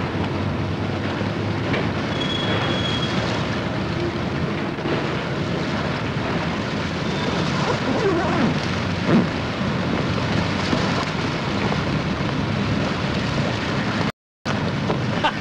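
Steady rushing noise of wind and water on the river, with a faint low hum underneath. It cuts out abruptly for a moment near the end.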